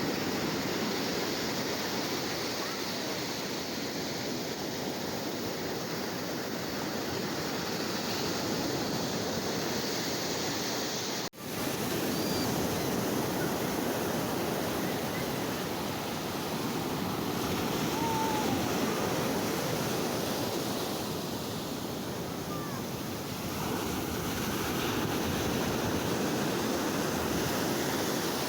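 Sea waves, a steady rush of surf that slowly swells and eases, broken by a split-second dropout about eleven seconds in.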